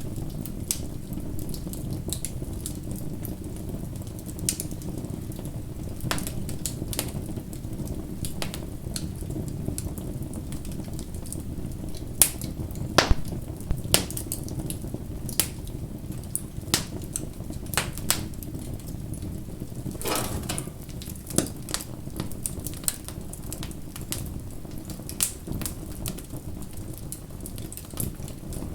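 Bonfire crackling, with irregular sharp pops and snaps over a steady low rumble of the flames. A cluster of louder pops comes about halfway through.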